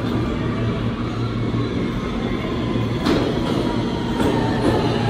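Kawasaki R160B subway train with Siemens propulsion running: a steady hum with motor tones over track noise, and a sharp click about three seconds in.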